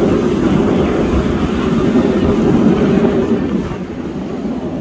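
Fighter jet flying past overhead: a loud, steady jet rumble that drops in level about three and a half seconds in.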